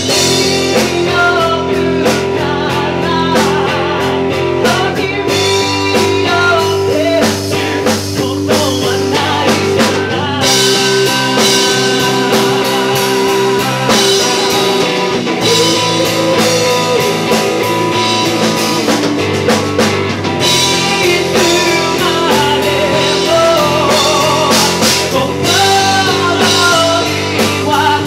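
Live band music: a male singer singing into a handheld microphone over an amplified electric guitar, loud and continuous.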